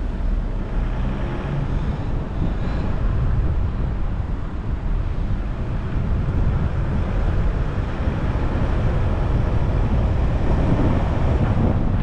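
Car driving on a town road: a steady low rumble of tyres and engine with wind noise, growing a little louder as the car picks up speed out of a roundabout.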